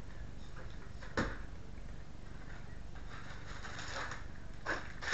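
Plastic packaging crinkling and rustling as it is handled and tossed aside, with a single sharp knock about a second in and another near the end.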